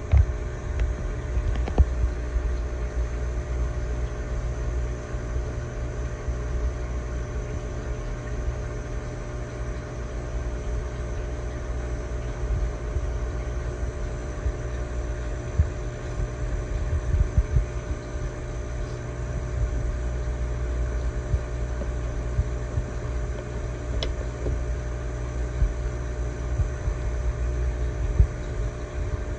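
Steady hum and low rumble of running aquarium equipment such as pumps and filtration, with a couple of light clicks.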